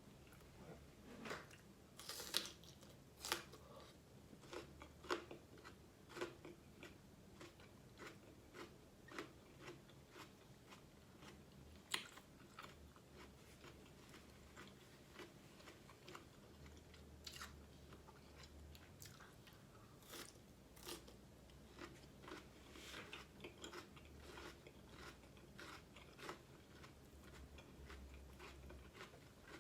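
A person biting and chewing food close to the microphone: irregular crunches and wet clicks, with several sharper bites about 2, 3, 5 and 12 seconds in.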